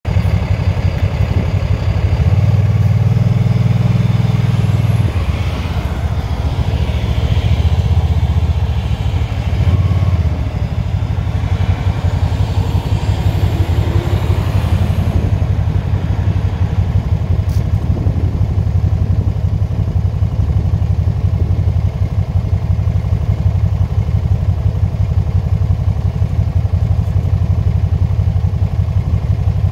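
Can-Am three-wheeled motorcycle running, heard through a chin-mounted action camera on the rider's helmet: a steady low rumble that swells louder from about two to five seconds in and again near ten seconds.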